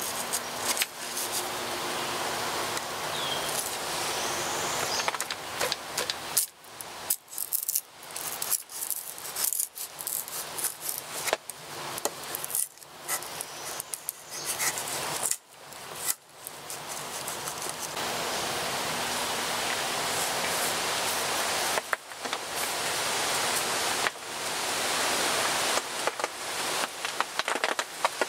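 Knife blade shaving thin curls off a wooden stick to make feather sticks, a run of scraping strokes, while raindrops pop sharply and irregularly on the tarp shelter overhead.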